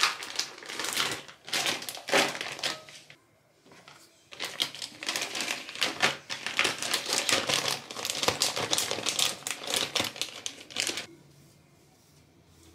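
Clear zip-top plastic bag of small toiletry bottles crinkling and crackling as it is handled and rummaged, with small clicks. It comes in two spells with a short pause about three seconds in, and stops about eleven seconds in.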